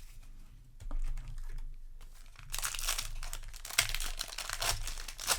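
Foil wrapper of a Magic: The Gathering Jumpstart booster pack crinkling and tearing as it is opened, with a dense crackle starting about halfway in. Before that there is only quiet handling.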